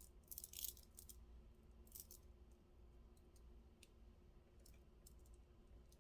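Faint clinking and rattling of small hard objects being handled: a short jingly rattle about half a second in, another clink near two seconds, then a few light ticks, over a low steady room hum.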